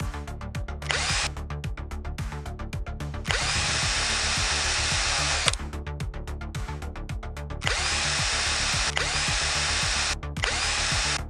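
Handheld power tool, of the kind used for bodywork, running in bursts of about two seconds that start and stop abruptly, several times. Background music with a fast, steady beat and bass plays underneath throughout.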